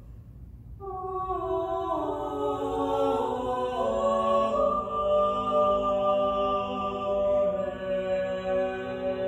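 Small vocal ensemble of four singers singing a cappella in long, sustained chords. The voices come in about a second in, with lower parts joining over the next few seconds.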